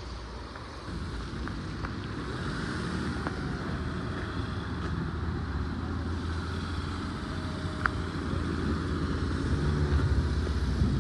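Motor vehicle engine running steadily, a low rumble that grows a little louder, with a few light ticks and one sharp click about eight seconds in.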